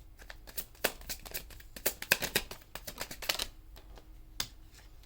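Tarot cards being shuffled and handled: a run of quick papery clicks and riffles over a few seconds, then a single card snap near the end.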